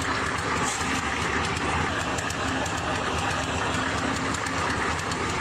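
Loud, steady mechanical running noise with a fast, regular clicking rattle: heavy machinery in operation.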